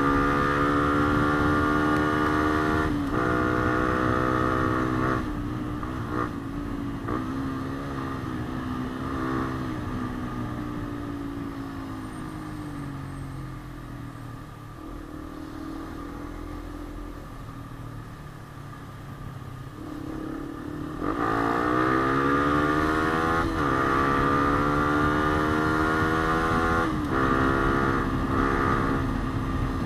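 Yamaha Sniper 150's single-cylinder four-stroke engine under way, revving up with short dips in pitch at each gear shift. About five seconds in the throttle closes and the engine runs quieter with its pitch slowly falling, then about twenty-one seconds in it opens up loud again and climbs through more shifts.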